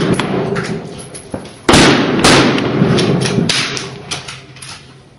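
AR-15 rifle shots fired close by: two loud shots about half a second apart, the first about a second and a half in, each with a long echo. Fainter gunshots from other shooters on the range pop throughout.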